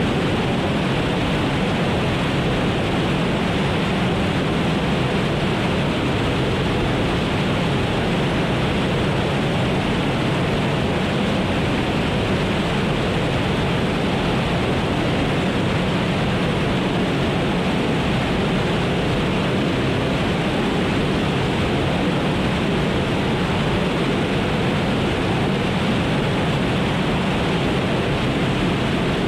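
Relativity Space Aeon R liquid-oxygen/methane rocket engine firing at full thrust: a steady, unbroken rush of noise that holds the same level throughout.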